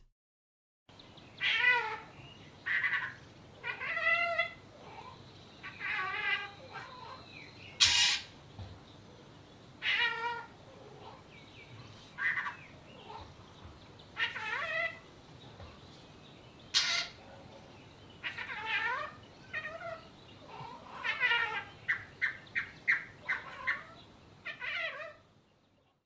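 Fork-tailed drongo calling in a string of separate calls, mimicking a cat's meow and the warning call of a Cape Robin-chat. Near the end it gives a quick run of short notes.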